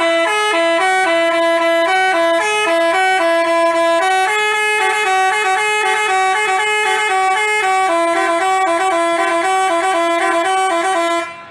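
Basuri telolet multi-tone bus horn playing a quick tune of stepping notes, cutting off near the end.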